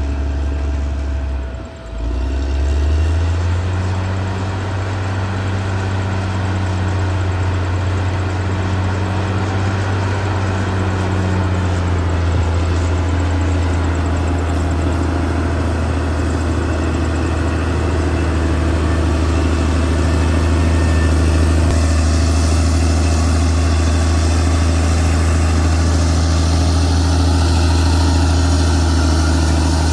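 Caterpillar D6R XL bulldozer's diesel engine running steadily with a deep, even drone. It dips briefly about two seconds in, then grows slightly louder and brighter from about two-thirds of the way through.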